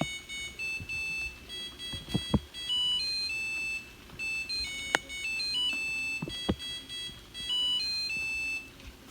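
Samsung DW80R5061UG dishwasher's beeper playing its electronic end-of-cycle melody, a repeating tune of short high tones that signals the cycle has finished. A few sharp clicks sound between the notes.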